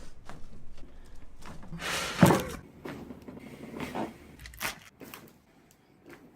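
Chiropractic upper-back adjustment: a series of short cracks and knocks as the spine is manipulated, the loudest about two seconds in.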